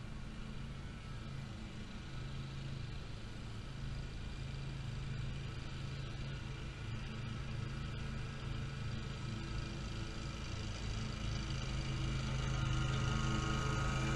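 Great Dane Super Surfer stand-on mower's engine running at steady mowing speed, growing louder over the last few seconds as the mower comes closer.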